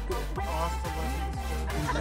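Background music with a steady beat, about two beats a second, over a melody.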